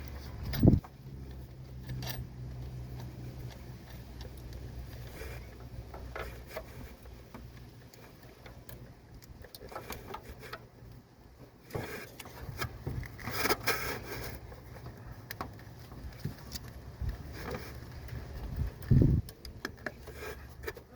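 Small metal clicks, scrapes and rubbing of hands and a tool working a battery cable onto a garden tractor's battery terminal, with two dull thumps, about a second in and near the end. A low hum runs under the first few seconds.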